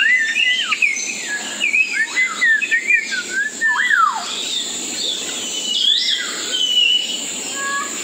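A tree full of unseen birds calling: a busy chorus of whistled calls that swoop up and down in pitch, thickest in the first four seconds, then thinning to fewer, higher, steadier whistles.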